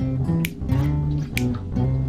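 Background music: guitar with a bass line and a steady beat about once a second.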